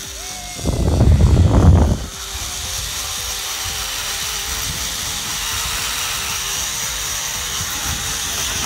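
Zip-line trolley running fast along its steel cable, a steady whirring hiss. A louder low burst of buffeting comes about a second in and lasts about a second.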